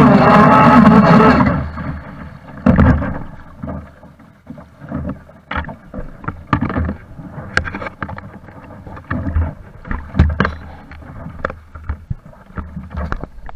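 Water sloshing and slapping against the hull of a Pro Boat Blackjack 42 RC catamaran, with irregular small splashes and knocks. A louder, steady rush at the start cuts off about a second and a half in.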